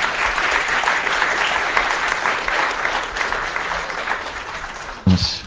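Audience applauding steadily, tailing off slightly toward the end, with a short louder sound near the end.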